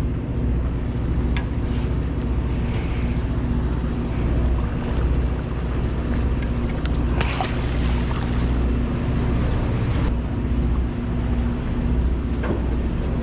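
A party boat's engine running with a steady low hum, over wind and sea noise. There are a few short knocks, and a brief rush of louder noise about seven seconds in.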